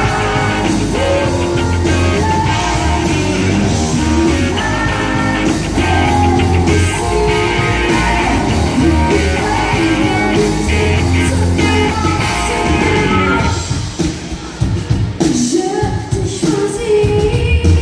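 Live rock-country band playing, with a woman singing lead over electric guitars, bass and drums. About three-quarters of the way through, the band drops out and the voice carries on nearly alone.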